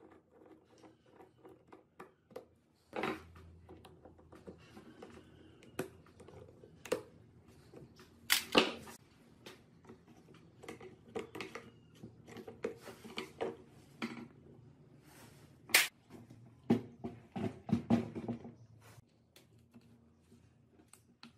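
Screwdriver and plastic air-filter parts of an old Stihl chainsaw being worked on a wooden bench: scattered clicks and knocks, a few sharper ones about 3, 8 and 16 seconds in, and a quick run of knocks near the end.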